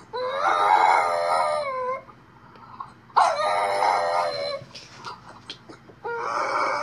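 French bulldog howling: three long, wavering howls, the third starting about six seconds in.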